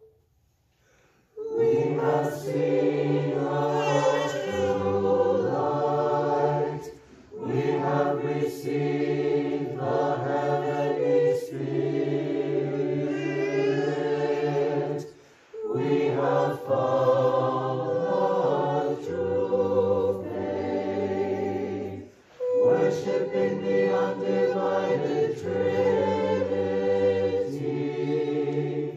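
Mixed choir singing hymns of the Divine Liturgy dismissal, starting after a moment's silence and going in four long phrases separated by short breaks.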